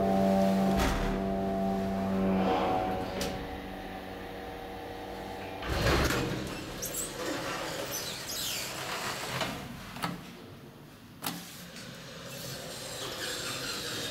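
1978 KONE hydraulic elevator: the drive hums steadily for the first two or three seconds and stops as the car comes to a halt. About six seconds in, the car's automatic sliding doors open with a loud thud and rumble, followed by a couple of sharp knocks. Near the end the doors start to slide shut.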